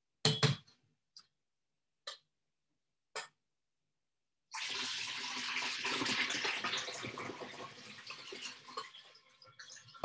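A short clatter and a few light knocks, then about five seconds of water rushing out as a pot of hot salted water and cucumber pieces is drained into the sink, fading out toward the end.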